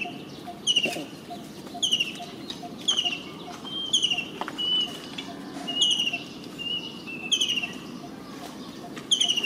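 A bird calling over and over: a short, high, falling call about once a second, with a few thinner whistled notes in between.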